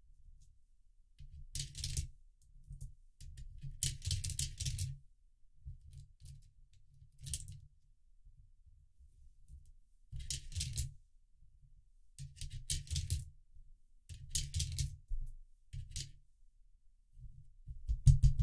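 Coins dropped into a 3D-printed plastic coin sorter, clinking as they tumble down the ramp and fall onto the coin stacks. The clinks come in short separate bursts about every two seconds, with the loudest near the end, and dull low rumbles of coins being handled come between them.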